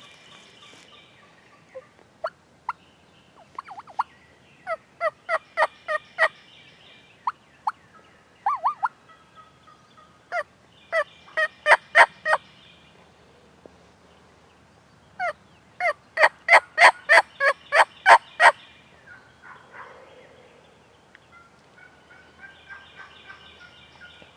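Wild turkey yelping: three runs of sharp, evenly spaced yelps, roughly three a second, the last and loudest run about a dozen notes long, with faint songbirds singing behind.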